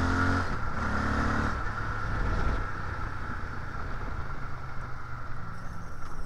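Cruiser motorcycle engine accelerating through the gears, its pitch climbing and dropping back at shifts about half a second and a second and a half in, then the rider rolls off the throttle and the engine falls to a low rumble under a steady rush of wind noise.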